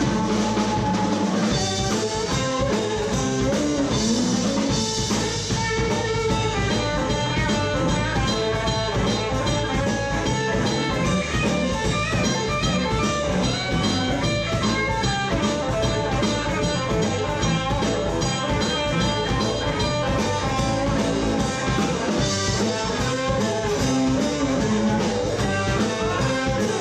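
A live band playing blues rock: electric and acoustic guitars over a drum kit with cymbals, without a break.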